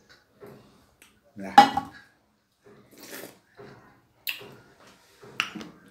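Metal dishes clinking and clattering on a table: a steel pot and metal plates being handled, with the loudest clatter about a second and a half in and a few shorter sharp clicks later.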